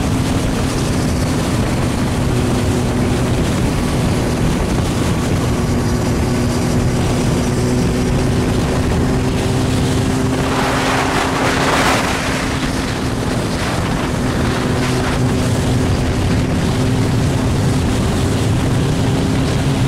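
Motorcycle engine running at a steady cruising speed, its pitch holding level, with road and wind noise on the microphone. A brief louder rush of noise comes about halfway through.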